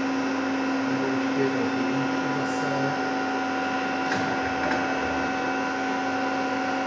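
Pinacho Rhino 325 CNC lathe running under power, a steady hum with several fixed tones and a light click about four seconds in.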